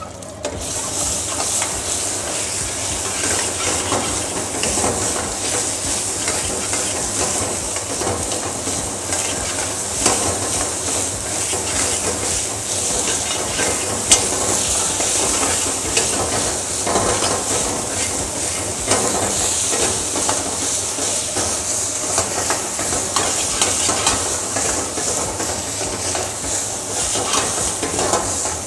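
Ginger-garlic paste and whole spices sizzling in hot oil in a steel wok over a high gas flame, with a metal ladle stirring and scraping in the pan. The sizzle starts sharply at the outset and stays steady, with scattered clicks and one sharper clack about halfway through.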